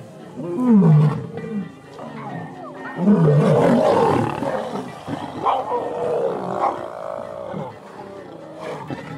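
Lions fighting: a male lion and lionesses snarling at each other, with falling-pitched snarls about half a second in and again about three seconds in. The loudest stretch runs from about three to five seconds as they clash.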